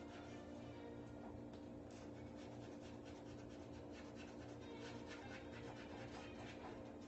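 Faint, quick strokes of a drawing tool scratching and rubbing on stretched canvas, over a steady low hum.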